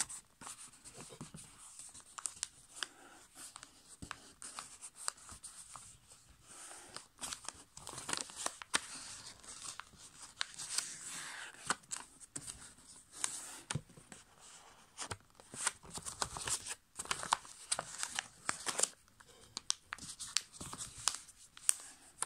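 A sheet of A5 copy paper being folded and creased by hand on a tabletop: irregular rustling and crinkling with many short, sharp strokes as the folds are pressed down.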